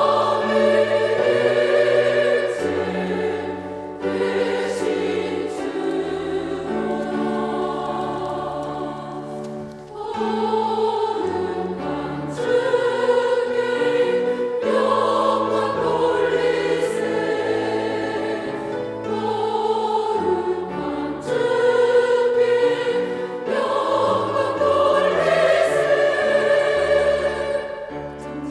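Church choir singing a hymn anthem in parts with instrumental accompaniment, in sustained phrases with short breaths between them.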